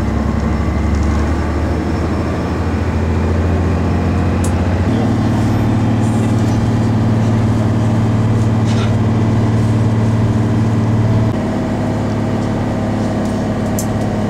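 Bus engine running under way, heard from inside the passenger cabin: a steady low hum whose pitch steps up about five seconds in and drops back about eleven seconds in.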